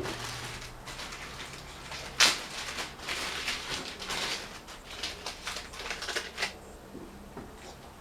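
Objects being handled by hand: irregular rustling and clicking, with one sharp knock about two seconds in.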